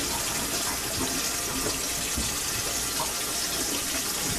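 Steady rush of water running down a kitchen sink drain through a newly installed basket strainer and PVC tailpiece and trap, during a full-sink leak test.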